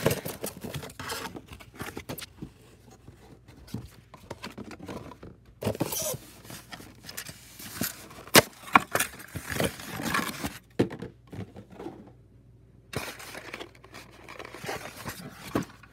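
Cardboard box and plastic packaging of a 1:24 scale diecast car being handled and pulled at: scattered rustling, crinkling and sharp clicks, coming in several bursts.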